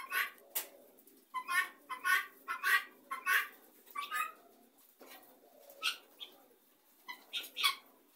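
Helmeted guineafowl flock calling: a quick run of short, repeated calls through the first half, then a few more calls near the end.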